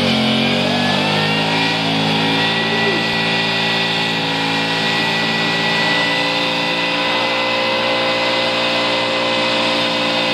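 A muscle car's engine revs up and is held at high, steady revs during a burnout, its rear tires spinning in thick smoke.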